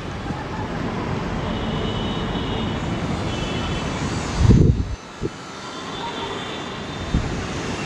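Jet engines of an Air India Airbus A320-family airliner running at low taxi power: a steady rumble with a faint high whine. A gust of wind buffets the microphone about four and a half seconds in.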